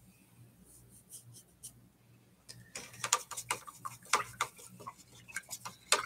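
Faint brush strokes on the painting panel, then a quick run of light clicks and taps from about halfway in as the paintbrush and painting tools are handled and set down.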